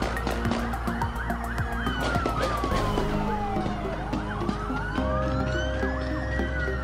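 Police siren wailing, sweeping slowly in pitch: it falls from high to low over about two and a half seconds, then climbs back up, with music playing underneath.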